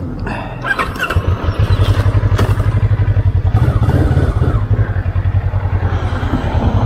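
Kawasaki ER-6n's 650 cc parallel-twin engine running with a fast, even low pulse. It gets much louder about a second in as the motorcycle moves off.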